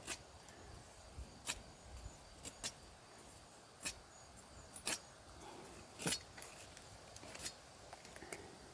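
Machete blade cutting into a dry spruce branch: a series of short, sharp knocks at irregular intervals, roughly one a second.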